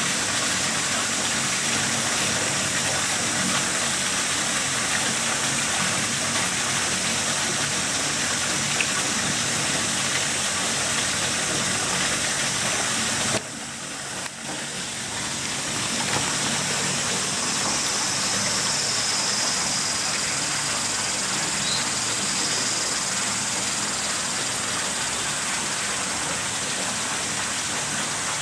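Steady rush of running water. It drops suddenly about halfway through and builds back up over a couple of seconds.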